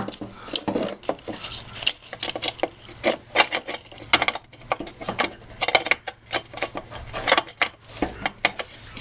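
Fuel tank straps being worked up through the holes behind the bumper: a busy, irregular run of clicks, knocks and scraping.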